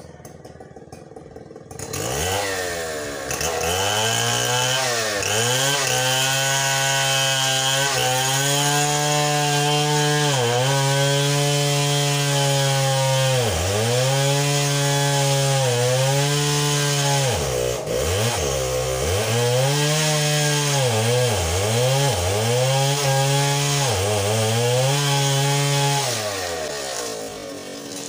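Two-stroke chainsaw running at high throttle. Its pitch drops sharply and climbs back many times as the throttle is let off and opened again. It comes in about two seconds in and dies away near the end.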